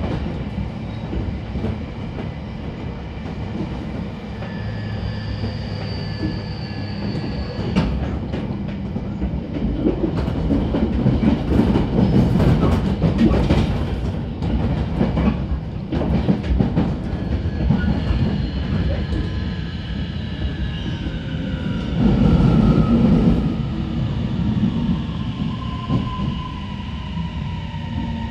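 Interior running sound of a JR Kyushu 811 series electric train's motor car: steady wheel and rail rumble with louder spells, and a whine of several tones that falls in pitch through the second half as the train slows.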